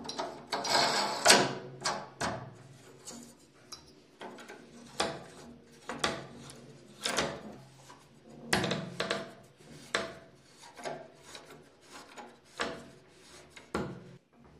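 Hands fitting and turning a cylindrical door lock's metal rose cover onto its threaded housing: irregular clicks, taps and scraping of metal parts, busiest in the first two seconds.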